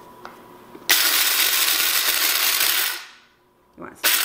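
Electric blade coffee grinder pulsed full of hard popcorn kernels, grinding them into corn flour with a loud rattling whir. It runs about two seconds, winds down, and starts again for a second pulse near the end.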